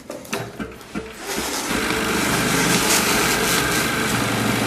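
Computerized sewing machine starting about a second in and then running steadily at speed, after a few light clicks.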